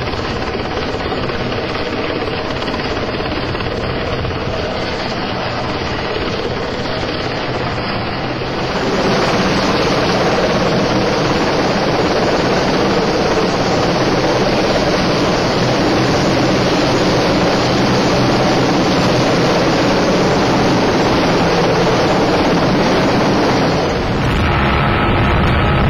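RAF Sea King helicopter hovering close overhead, its rotors and engines making a loud, steady noise that gets louder about a third of the way in. Near the end the rotor downwash hits the microphone as a low wind rumble.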